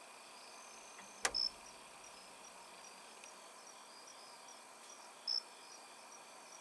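Insects chirping in a steady high pulsing rhythm, about three chirps a second, with a sharp click about a second in and two short, louder high chirps, one soon after the click and one near the end.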